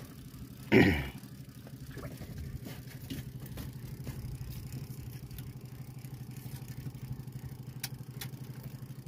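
Outrigger boat's engine running steadily at low, even revs. About a second in there is one brief loud burst over it, and a few light clicks near the end.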